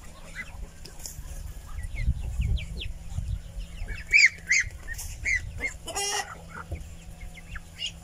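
Young poultry peeping and cheeping repeatedly in short high calls, busiest about halfway through. There are low bumps around two seconds in and a brief rattling call near six seconds.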